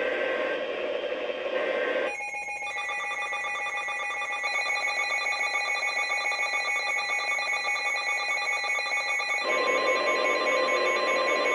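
Emergency alert tones from NOAA Weather Radio: a shrill, fast-trilling electronic alarm begins about two seconds in over radio hiss, and near the end a single steady alert tone carries on.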